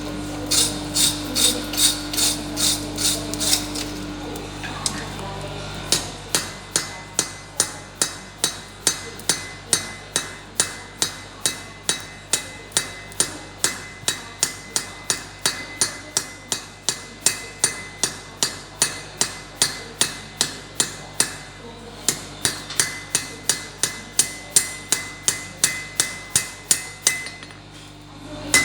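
Blacksmith's hammer striking a scarf weld of two iron bars on the anvil at welding heat, forge-welding the joint. The blows come fast and even, about three a second, with a pause about five seconds in and a stop near the end.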